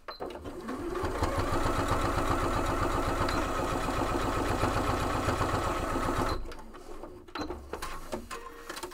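Domestic electric sewing machine stitching a strap tab down through layered quilted fabric with back stitching. It builds up speed over the first second, runs steadily with a rapid, even needle rhythm for about five seconds, then stops.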